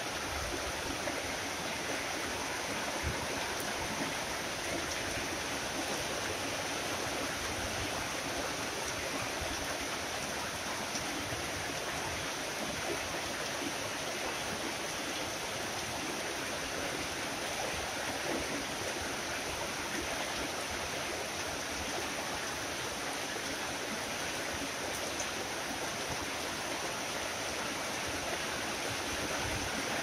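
Tropical rain falling steadily, an even hiss of water with no let-up and no single drops or thunder standing out.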